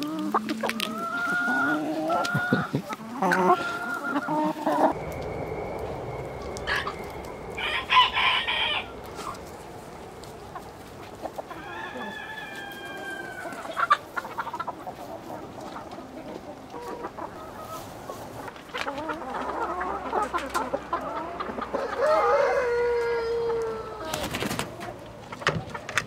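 Chickens clucking, with longer calls from a rooster crowing twice, about twelve seconds in and again near the end. A low steady rumble sets in suddenly about five seconds in.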